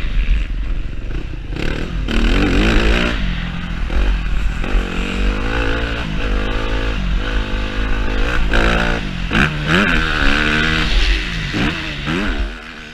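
Yamaha YZ-F four-stroke motocross bike engine heard onboard, revving up and dropping back again and again as the throttle is worked through the track, over a constant low rumble on the camera microphone. The sound fades sharply near the end.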